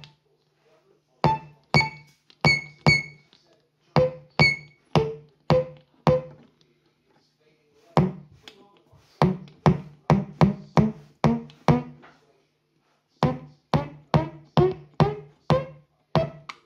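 Ciat-Lonbarde Gerassic Organ, a DIY three-key synth, played by tapping its keys: short bongo-like drum tones that strike and die away quickly. They come in runs of several a second with a few short pauses, over the same low note, while the higher tone changes from run to run as the keys are retuned.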